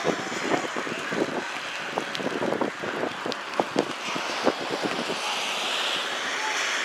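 Wind blowing across the microphone, with many short irregular sounds during the first five seconds.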